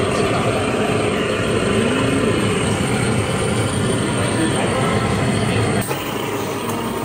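Steady low rumble of restaurant background noise with faint voices under it, dropping slightly about six seconds in.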